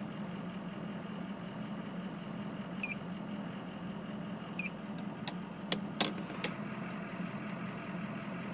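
Ford 6.0 Power Stroke V8 diesel idling steadily, with a few sharp clicks past the middle. Injection control pressure is about 100 psi below desired with the injection pressure regulator almost fully closed: a leak in the high-pressure oil system.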